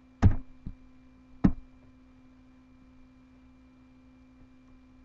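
Three short clicks from computer keyboard and mouse use close to the microphone, two of them loud, all within the first second and a half, over a faint steady hum.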